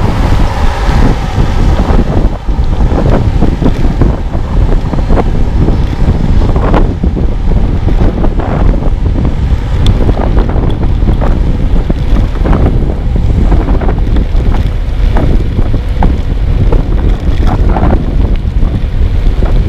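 Wind buffeting the microphone of a camera carried on a moving bicycle, a loud steady low rumble with frequent irregular knocks and rattles.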